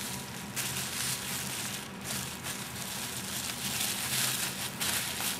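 Plastic wrapping and packaging crinkling and rustling unevenly as they are handled, over a faint steady low hum.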